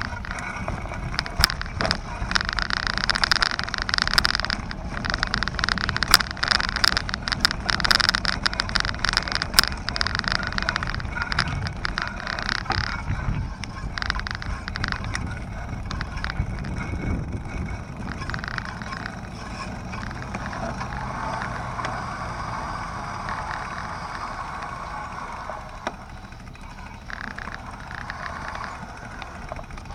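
A bicycle rolling over paving stones, rattling and clicking, over street noise. The rattling is densest in the first half and gives way to a smoother, quieter rolling hum in the second half.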